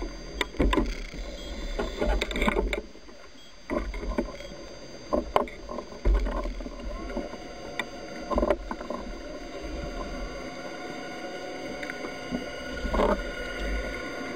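Underwater noise through a camera housing mounted on a speargun: irregular knocks and clicks from handling the gun, over a low rumble that comes and goes and drops out briefly about three seconds in.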